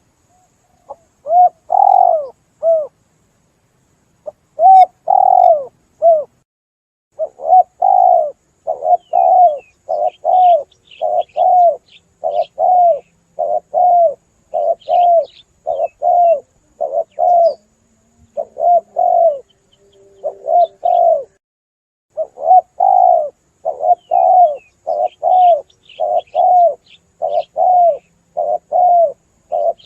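Spotted doves cooing: a run of short, repeated coos at roughly one and a half notes a second, pausing briefly a few times, with faint high chirps of small birds in places.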